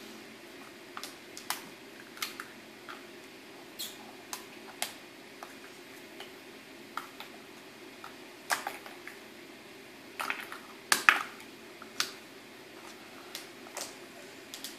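Irregular small plastic clicks and taps as plastic Easter eggs are handled and snapped open, with a louder cluster of clicks about ten seconds in, over a steady low hum.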